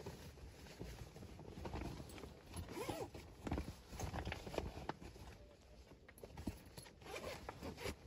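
Wood fire crackling and popping irregularly in the firebox of a steel camp stove.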